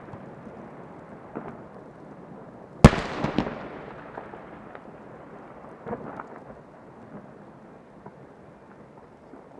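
Aerial fireworks bursting: one loud boom about three seconds in, quickly followed by a smaller bang, with the sound rolling away in a long echo. A cluster of smaller bangs comes near the middle, then scattered faint pops and crackles as the noise dies down.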